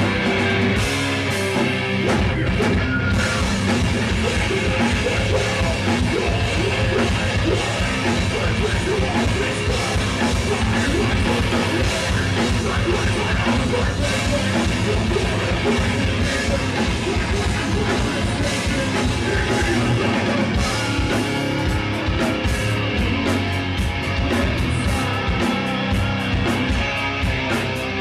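Heavy metal band playing live: distorted electric guitar, bass and fast, busy drum kit, with a vocalist singing through the PA. Loud and dense throughout, with the cymbals more prominent in the last few seconds.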